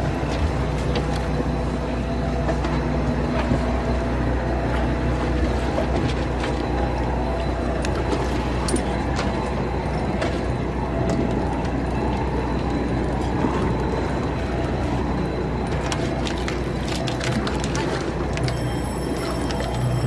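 Boat engine droning steadily under a wash of sea and splashing water, with scattered knocks.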